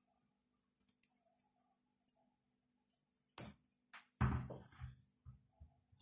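Quiet clicks and crackles of chrysanthemum cuttings being picked over by hand, leaves and small stems pinched off. A sharp snap comes about three and a half seconds in, and a louder knock and rustle a little after four seconds.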